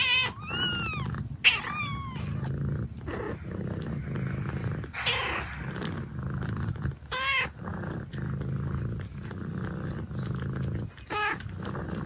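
A nursing mother cat purring steadily, with short trilling meows over the purr, one right at the start and others about two, seven and eleven seconds in.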